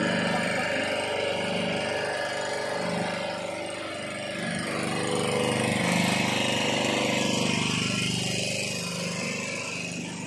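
Boat engine running steadily.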